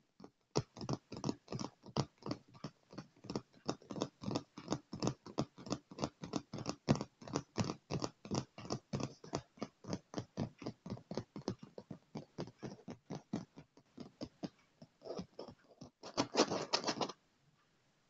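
Fingertips tapping fast on a dark leather chair, several sharp taps a second, thinning out about three-quarters of the way through. Near the end comes a brief, loud burst of rapid scratching on the surface.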